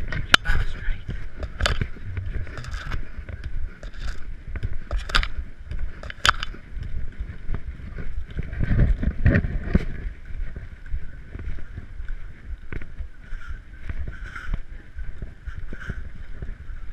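Handling noise from a hand-held GoPro carried at walking pace: a steady low rumble with irregular knocks, and a heavier surge of rumble about halfway through.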